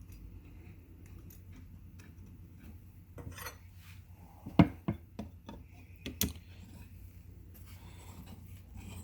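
Metal espresso-machine parts and a hand tool clinking and knocking as the machine's group head is worked on: a short scrape about three seconds in, then three sharp knocks, the first the loudest.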